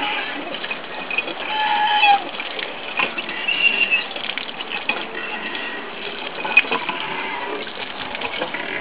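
Hand water pump being worked, with water splashing onto a concrete well apron and short high-pitched sounds scattered throughout.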